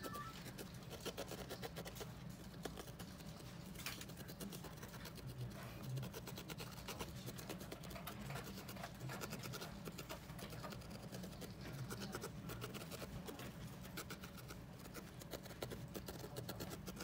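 Felting needle repeatedly stabbing a ball of wool on a foam pad: a fast, even run of faint scratchy pokes, sped up fourfold.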